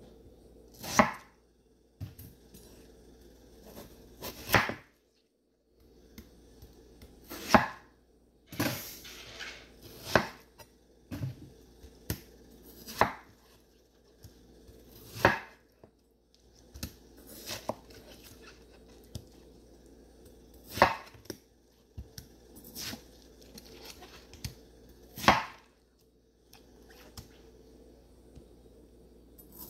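Kitchen knife cutting through watermelon and knocking down onto a wooden cutting board: a sharp knock every few seconds at an uneven pace, with quieter taps between.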